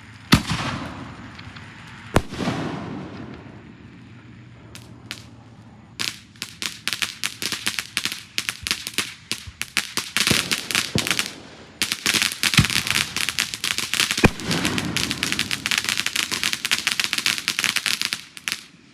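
Fireworks: two sharp bangs, each trailing off, in the first few seconds, then from about six seconds in a long run of rapid crackling pops that grows almost continuous before stopping near the end.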